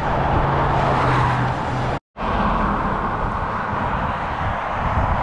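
Cars passing on a two-lane highway: a steady rush of tyre and road noise that swells and fades, with a low engine hum in the first two seconds. The sound breaks off completely for a moment about two seconds in.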